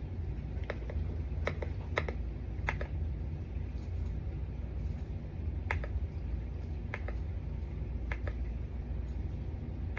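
Keystrokes on a YUNZII X98 mechanical keyboard: separate, unhurried key clicks, four in the first three seconds and a few more spaced out later. A steady low hum runs underneath.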